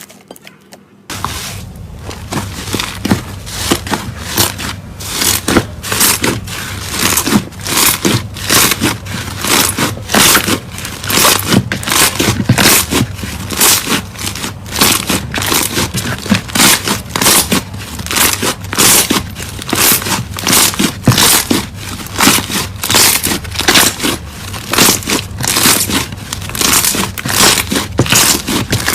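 Slime being squeezed and worked by hand: a continuous run of loud crackling, squelching pops, about two strong ones a second, starting about a second in.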